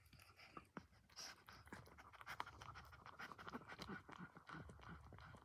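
Mother dog licking and nuzzling her newborn puppy: faint, irregular wet clicks and rustles.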